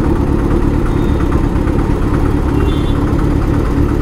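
Kawasaki Z900's inline-four engine idling steadily.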